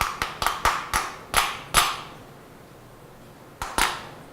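A hammer tapping a workpiece down in a milling-machine vise to seat it tight on the parallels beneath it: about seven quick, sharp taps with a short ring, a pause, then two more taps near the end.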